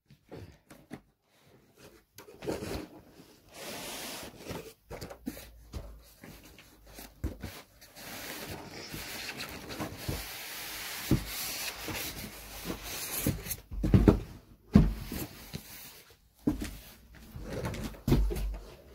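Cardboard box and polystyrene packing being handled while a monitor is pulled out: rubbing, scraping and small knocks, a long sliding rub starting about eight seconds in, and a few dull thumps near the end.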